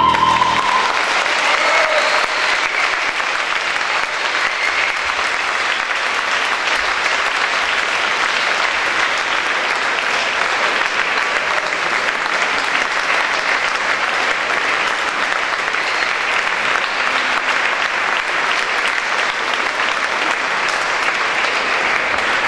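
An audience applauding steadily in a concert hall, a dense, even clapping that holds its level throughout. In the first second the soprano's last held note, sung over the piano, ends as the applause rises.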